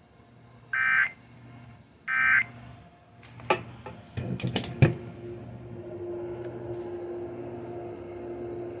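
Two short buzzy digital data bursts from a weather radio, about a second and a half apart: the Emergency Alert System (SAME) code sent at the end of an alert. A few seconds in come several sharp crackles and clicks of lightning static, and after them a steady low hum.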